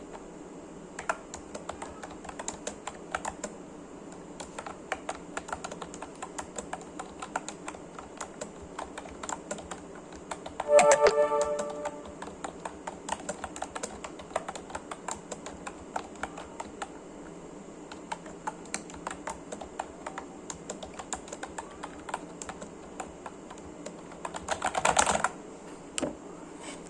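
Forev computer keyboard being typed on, a steady irregular stream of key clicks. About eleven seconds in, a brief loud pitched sound cuts across the typing, and near the end a dense, louder clatter of keys.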